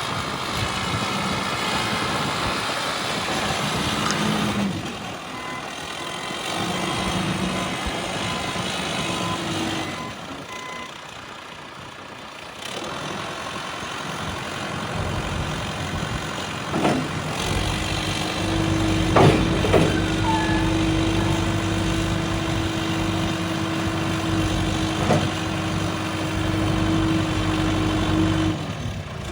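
John Deere 310SG backhoe loader's diesel engine running, its note shifting in the first half and dipping quieter partway through. From about halfway in it runs steadier and stronger with a held whine, and a few sharp knocks come shortly after it picks up.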